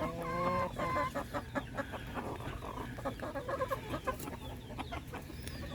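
Small silkie bantam chickens clucking, with short calls about half a second and a second in and many quick short taps throughout.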